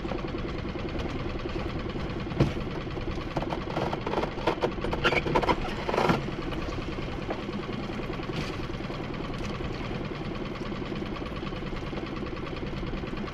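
Boat engine idling steadily, with knocks and rattles from a lobster pot being handled on the boat's side about two to six seconds in.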